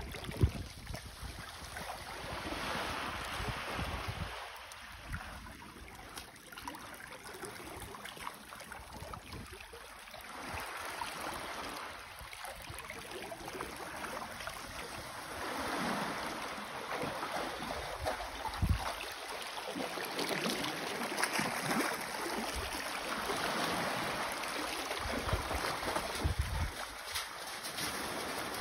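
Shallow seawater sloshing and lapping among rocks, swelling and easing every few seconds, with gusts of wind buffeting the microphone. A couple of brief thumps come through, the sharpest about half a second in.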